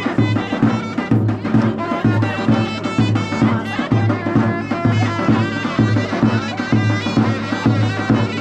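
Traditional folk music: a melody instrument over a steady drum beat.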